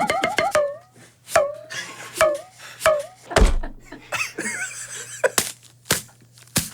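Hand-made foley sound effects: a run of sharp knocks and clicks, four of them each followed by a short squeaky tone. A heavier thump comes about halfway through and another near the end.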